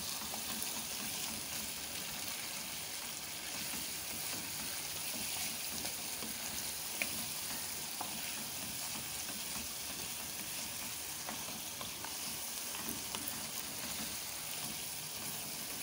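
Mutton and spice masala sizzling in hot oil in a nonstick karahi, stirred with a spatula that now and then scrapes lightly against the pan. The tomato puree's water has cooked off, so the meat and masala are frying in the oil.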